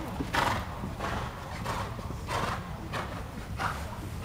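Horse cantering on soft arena footing, with a dull beat roughly every two-thirds of a second in time with its strides.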